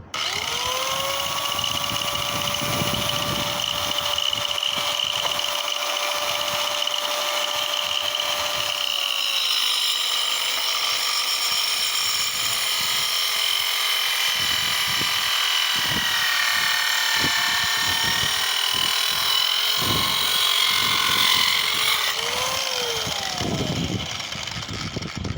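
Small circular saw with a roughly 3-inch blade cutting through a 4x4 timber post. The motor whine rises as it starts and holds steady. About ten seconds in it drops in pitch and wavers as the blade works through the wood, then it stops near the end.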